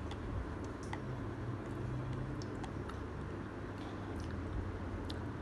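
Chopsticks clicking and scraping lightly against the inside of a clear plastic bowl while picking up the last bits of noodles, several separate small ticks over a steady low hum.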